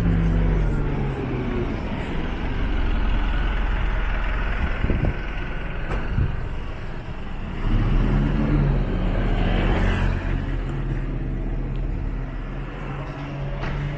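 Isuzu city bus's diesel engine running close by as the bus pulls past, fading after a couple of seconds. A second vehicle engine rises about eight seconds in and runs on to the end, amid street traffic.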